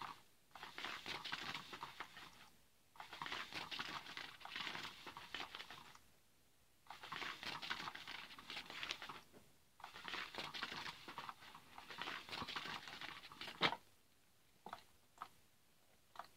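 Battery-powered Cat's Meow cat toy running, its wand sweeping under the nylon cover with a crinkling rustle in bursts of a few seconds with short pauses between. Near the end a sharp click, the loudest sound, is followed by a few faint ticks.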